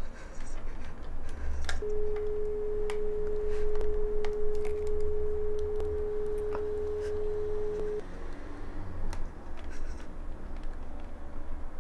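Landline telephone dial tone: one steady, continuous tone heard from the lifted handset for about six seconds, starting about two seconds in and cutting off abruptly. Scattered small clicks and knocks of the handset being handled, over a low rumble.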